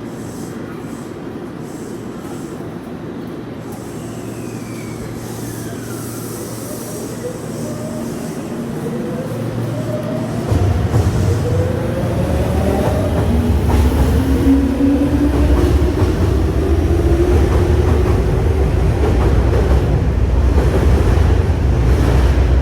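Tokyu electric commuter train pulling out and accelerating, its traction motors whining in several tones that climb steadily in pitch. It grows louder as it goes, and a heavy low rumble of wheels on rail comes in about halfway through.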